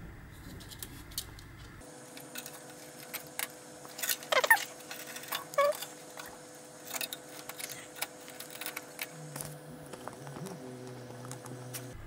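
SAS cables being handled and routed inside a server chassis: scattered light clicks and taps of connectors and cable against metal, with rubbing and a couple of short squeaks.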